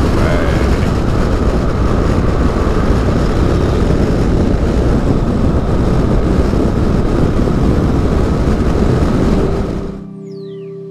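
Steady rush of wind and road noise from a BMW GS adventure motorcycle cruising at speed, heard from a camera mounted on the bike. Near the end the noise fades out and an acoustic guitar comes in.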